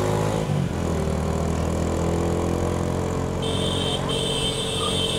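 A motor vehicle's engine running steadily. A steady high-pitched tone joins about three and a half seconds in, breaking off briefly.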